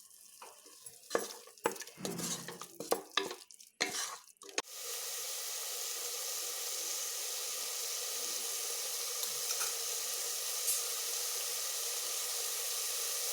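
A spoon scraping and knocking against a pressure cooker pot as onion-tomato biryani masala is stirred. About five seconds in, this gives way to a steady sizzle of the masala frying.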